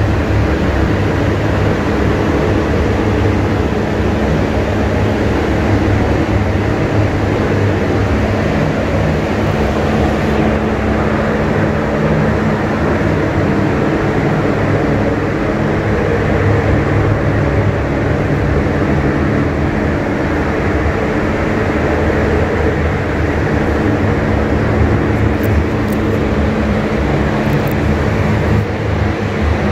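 Steady, loud whir of spray-booth ventilation fans moving air, a constant hum under an even rush of air.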